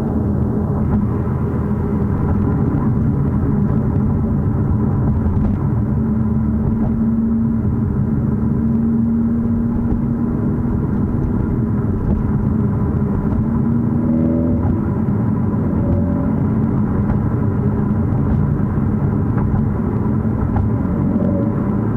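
Mercedes-AMG CLA 45 S driving, with a steady rumble of engine and road noise. The engine note drifts slowly up and down in pitch. No distinct knock or squeak stands out.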